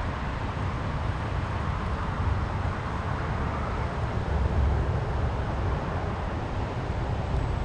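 Steady outdoor background noise: a low rumble with an even hiss and no distinct events.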